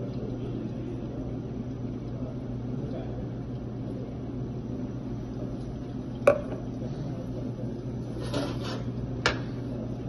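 Stainless steel milk pitcher and cup being handled at an espresso bar: two sharp clanks about three seconds apart, the first the loudest, with a brief rattle just before the second. A steady low hum runs underneath.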